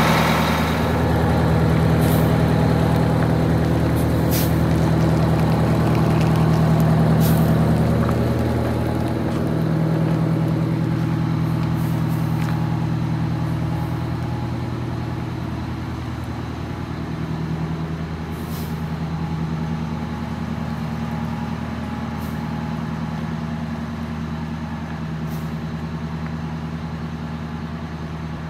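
Blue Bird Wanderlodge motorhome's rear diesel engine running steadily, with its water pump freshly rebuilt, new thermostats and the alternator belt tightened. The sound fades as the bus moves away, with a few short hisses of air.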